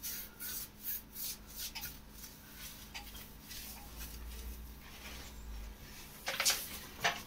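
Wiping strokes over tiles with white vinegar, rubbing off the first layer of grime: about two to three rubbing strokes a second that grow fainter, with a few louder strokes near the end.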